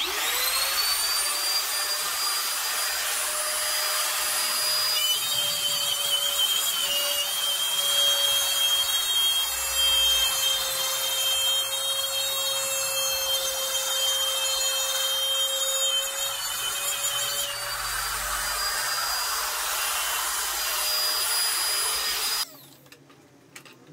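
Stanley compact trimmer router switched on, its motor rising quickly to a steady high whine. From about five seconds in it cuts a groove in a wooden board along a guide for roughly twelve seconds, then runs free again and stops abruptly near the end.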